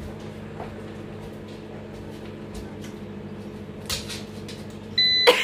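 Countertop microwave running with a steady low hum as it heats butter, with a light knock near four seconds in. Its end-of-cycle beep sounds near the end, signalling that the heating time is up.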